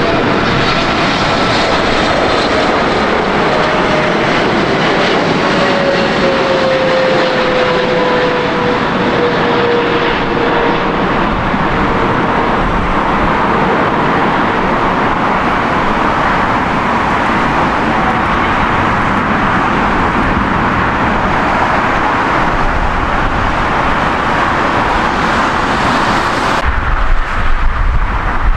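Boeing 777-300ER jetliner passing low on landing approach: a steady jet rush from its GE90-115B turbofans, with an engine whine that slides down in pitch as it goes by. Near the end the sound changes abruptly to a duller, gusty rumble with wind on the microphone.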